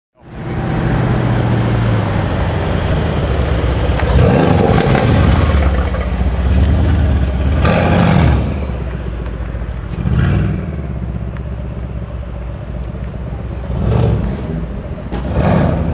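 Mercedes-AMG C63 S coupé's twin-turbo V8 running at low speed. It is revved in about five short throttle blips, each rising and falling back within a second or so.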